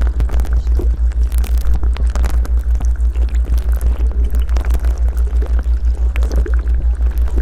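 A loud, deep hum pulsing evenly several times a second: a theta-wave tone of the kind used in subliminal audio, over a faint hiss of background noise.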